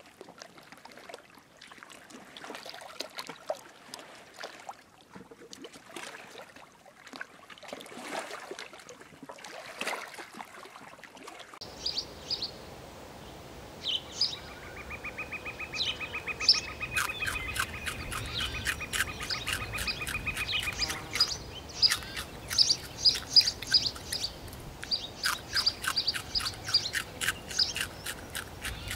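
At first, rustling and scattered light clicks. Then, after a change in the sound, a fast pulsing trill and many sharp, high chirping calls repeated rapidly over a low steady background.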